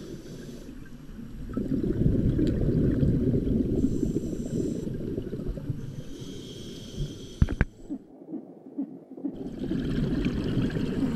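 Muffled underwater rumble picked up through a GoPro's waterproof housing: scuba divers' exhaled regulator bubbles and water moving past the camera. A couple of sharp clicks come about seven and a half seconds in, and the sound drops out briefly about a second later.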